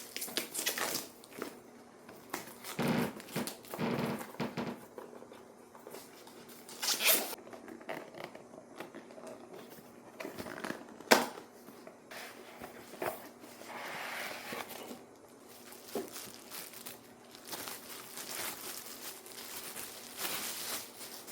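Rustling and crinkling handling noises, with scattered sharp clicks and knocks, one louder click about eleven seconds in.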